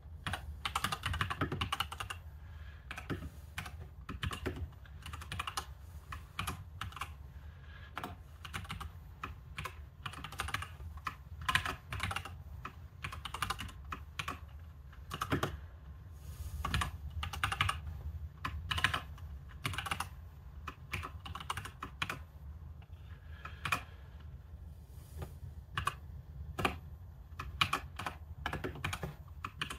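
Typing on a computer keyboard: runs of quick key clicks broken by short pauses, over a low steady hum.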